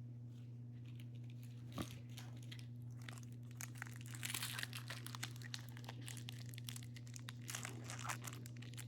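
Foil wrapper of a trading-card pack crinkling and tearing as it is handled and opened, a run of rustles and small clicks from about three and a half seconds in. One sharper click comes near two seconds, over a steady low hum.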